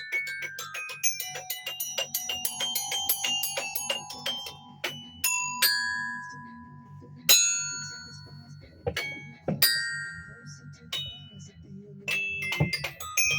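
Tuned mallet percussion being played: a quick run of struck notes, then single notes hit a second or so apart and left to ring, then fast playing again near the end.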